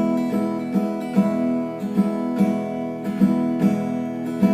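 Instrumental passage of a song: acoustic guitar strumming chords in a steady rhythm.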